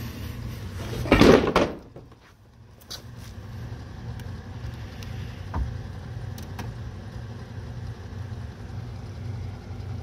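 Portable dehumidifier running in a closed wood kiln, a steady low hum. About a second in comes one loud, brief knock-and-scrape, with a couple of faint clicks later on.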